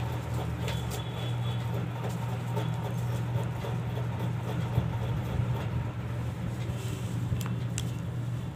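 Steady low hum with faint hiss over it, and a couple of light clicks near the end.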